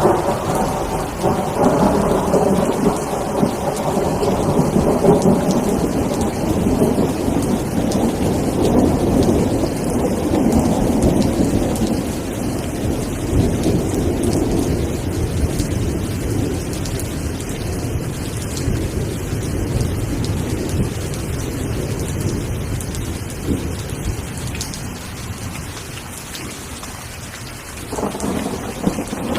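Steady rain with a long roll of thunder that starts suddenly at the beginning, rumbles strongest for the first ten seconds or so, then slowly dies away; a fresh rumble of thunder starts near the end.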